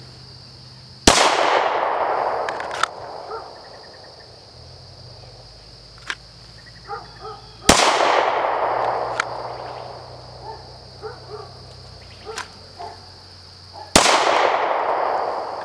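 Handgun fired three times, single shots about six seconds apart, each a sharp crack followed by a long echo. Crickets chirp steadily throughout.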